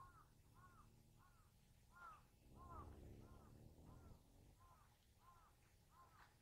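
Faint animal calls: short, clean rising-and-falling notes repeated evenly, about one and a half a second. A low murmur swells briefly near the middle.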